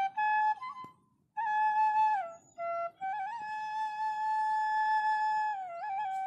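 Solo flute music: a slow melody of long held notes that slide and bend from one pitch to the next, with a brief pause about a second in.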